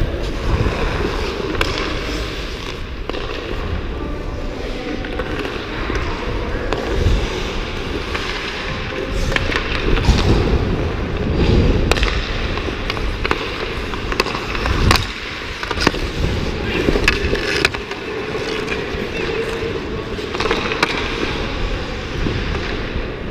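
Ice hockey skate blades scraping and carving across the ice, heard close up from a camera on a moving skater, with sharp clacks of sticks and puck scattered through it.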